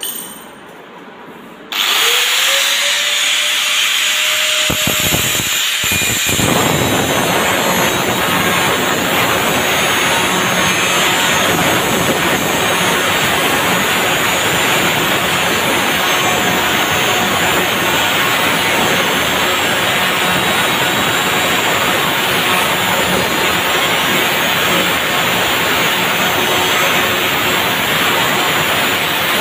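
Angle grinder with a cutting disc switched on about two seconds in, its whine rising as the disc spins up. A few seconds later the disc bites into a 1-inch steel pipe, and a loud, steady grinding of metal being cut runs on.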